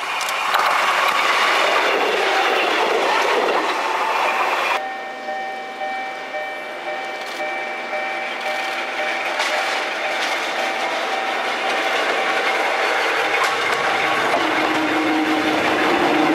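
Old Kotoden electric train with nose-suspended (tsurikake) traction motors running past close by, a loud rush of motor and wheel noise. It cuts off suddenly about five seconds in. Then a train runs through a station with a steady whine, a few clicks, and a lower growl building near the end as the cars pass close.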